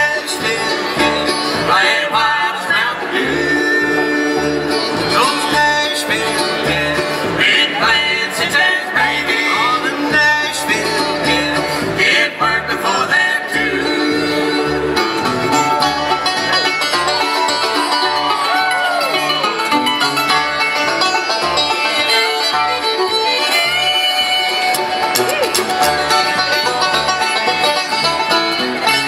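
Bluegrass band playing live: fiddle, five-string banjo, mandolin, acoustic guitar and upright bass together at a steady, driving tempo.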